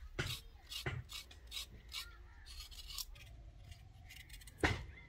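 Kitchen knife blade scraping the skin off red carrots in short, repeated strokes, a couple a second, with one louder knock near the end.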